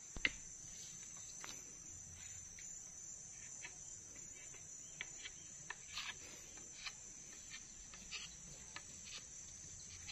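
Steady high-pitched insect trill, with a dozen or so faint, scattered clicks and knocks.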